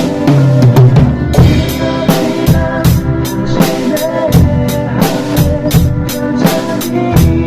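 Drum kit played to a steady beat, with regular cymbal strokes, kick and snare, along with a recorded CCM worship song backing track.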